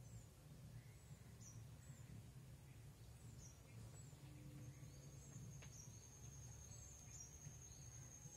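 Near silence: room tone with a steady low hum and faint high-pitched chirps about once a second, a thin high whine joining about halfway in. There is one faint click a little past halfway.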